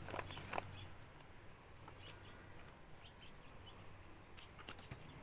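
Faint quiet with a few soft clicks and rustles from hands placing potatoes into soil in a grow bag, and faint bird chirps behind.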